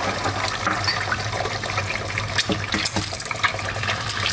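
Duck egg frying in a pan of hot oil: a steady sizzle with frequent small crackles and pops.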